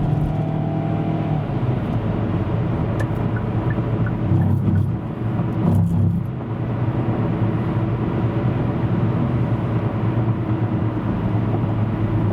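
Car engine and road noise of a moving vehicle, a steady low drone that swells slightly a few times.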